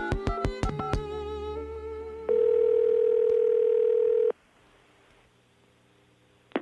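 The end of a music bed, with a run of sharp ticks, dies away in the first second or so. About two seconds in, a telephone ringback tone sounds once over the phone line for two seconds and cuts off, then the line is nearly silent while the call waits to be answered.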